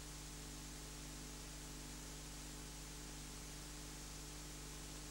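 Faint, steady hiss with a low electrical hum underneath: the bare noise floor of a VHS tape transfer, with no programme sound on it.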